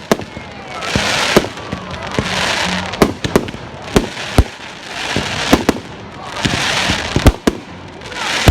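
Fireworks display: sharp bangs of aerial shells bursting every second or so, irregularly spaced, with stretches of crackling hiss from crackle effects between them.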